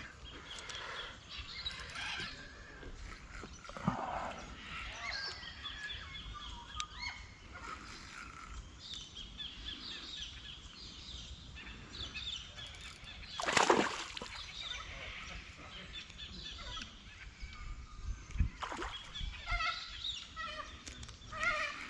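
Birds calling and chirping, with many short, high calls throughout. A single brief, loud burst of noise cuts in about two-thirds of the way through.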